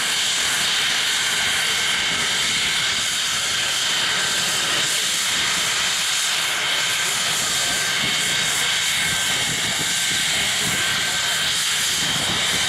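Saab 37 Viggen's Volvo RM8 turbofan running steadily: an even jet whine of several high, unchanging tones over a loud rushing hiss.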